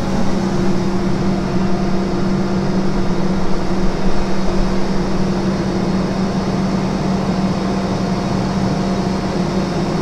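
Combine harvester running with a steady mechanical hum while its powered grain tank lids are driven closed.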